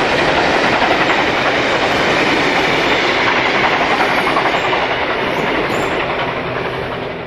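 Vintage passenger carriages of a steam special running past on the climb, their wheels clattering over the rail joints as the tail of the train goes by and draws away. The sound stays loud, then fades near the end.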